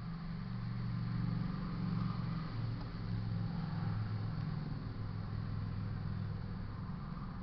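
A motor vehicle engine running with a steady low drone, swelling a little as a vehicle passes on the road near the crossing.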